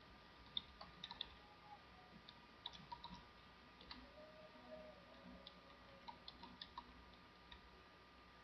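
Computer keyboard being typed on: faint, irregular keystroke clicks, several in quick runs, with short pauses between.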